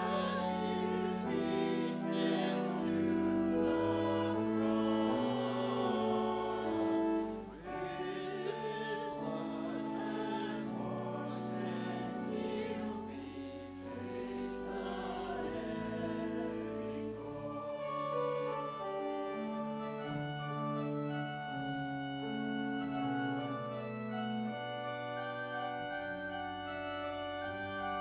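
Choir singing with organ accompaniment; about seventeen seconds in the voices stop and the organ carries on alone with sustained chords.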